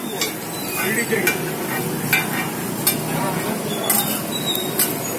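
Metal spatula clinking and scraping against a flat iron griddle as set dosas are loosened and turned, with several sharp, irregularly spaced clinks.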